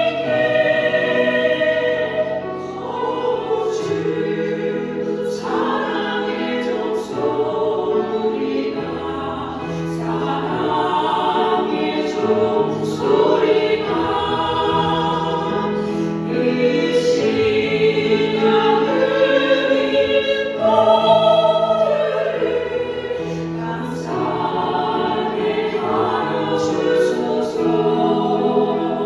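Church choir singing a hymn in several parts, with sustained low notes beneath the voices.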